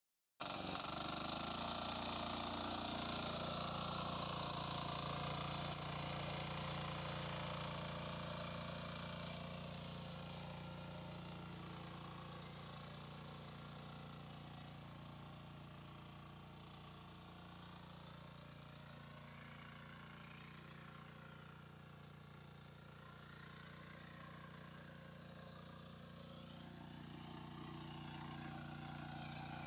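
Power weeder (mini power tiller) with a single-cylinder engine running steadily under load as it tills the soil. It is loudest at first, grows fainter from about six seconds in as the machine moves away, then comes up again near the end.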